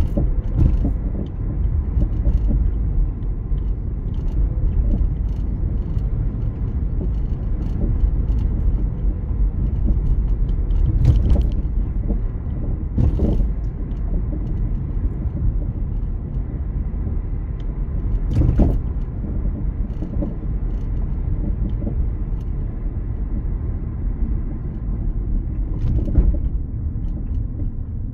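Steady low rumble of a car's engine and tyres on the road, heard from inside the cabin while driving. A few brief knocks break through it, about four in all.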